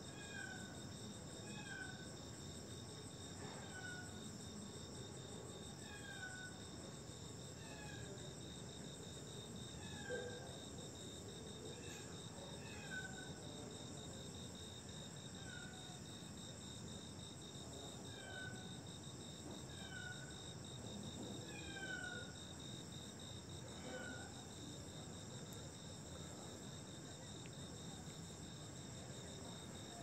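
Night chorus of insects: a steady, unbroken high shrill. Over it, a short falling call repeats about once every second or so, fading out a few seconds before the end.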